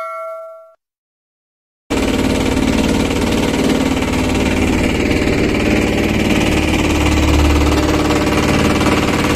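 A short chime rings and fades in the first second. Then, after a brief silence, a small wooden fishing boat's engine runs steadily and loudly while the boat is underway, with wind and water noise over it.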